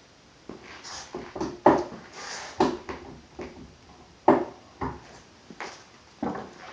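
Handling noise from a gun vise and its parts: a run of irregular knocks and clacks, about a dozen. The loudest come about a second and a half in and just past the middle.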